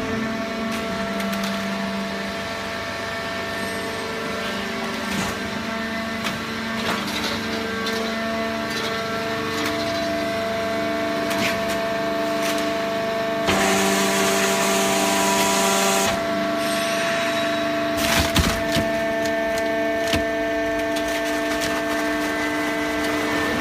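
Fully automatic horizontal hydraulic cardboard baler running: a steady whine from its motor and pump, with cracking and creaking as waste cardboard is compressed. A louder hiss lasts a couple of seconds just past the middle, and a few knocks come near the end.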